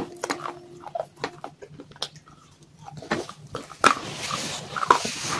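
Close-up crunching and chewing of baked clay pieces coated in wet clay paste: scattered sharp crunches, turning into denser, wetter chewing about four seconds in.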